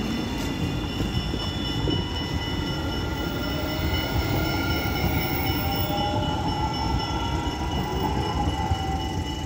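Electric tram pulling away and running past, its traction motors whining with a pitch that rises as it picks up speed, over the rumble of its wheels on the rails.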